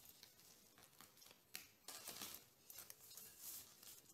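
Faint rustling and handling noises: a stethoscope being moved about by hand, with a few soft scrapes and rustles that come and go.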